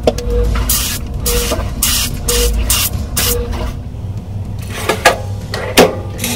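Spray bottle misting the flour-coated chicken wings in about five quick hissing pumps, followed near the end by two sharp knocks.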